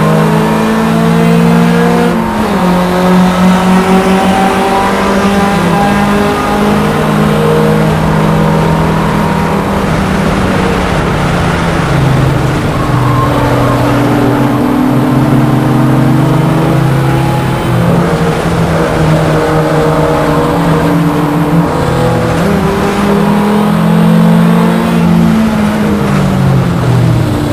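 VW Rabbit race car engine heard on board, running hard. Its pitch climbs slowly and drops several times as the car shifts and slows for corners, over road and wind noise.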